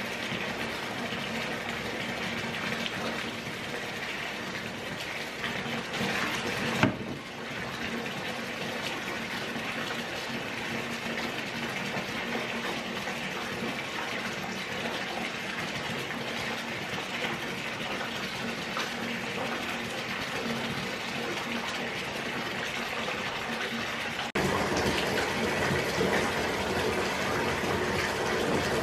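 Bathtub faucet running, water gushing into a filling tub. A single brief knock about seven seconds in, and the running water becomes louder about 24 seconds in.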